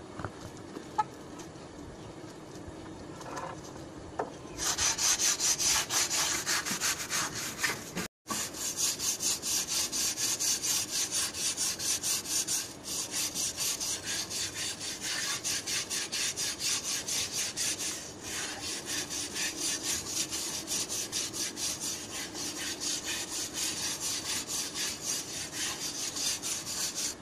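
Scrubbing of a wet concrete floor with quick, even back-and-forth strokes, several a second. The strokes start about four seconds in and cut out briefly near eight seconds.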